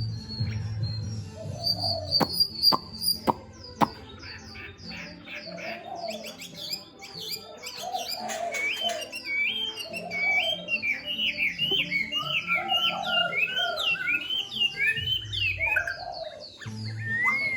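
A caged songbird singing, a long run of quick chirps and short whistled phrases that rise and fall, over background music. A few sharp clicks come two to four seconds in.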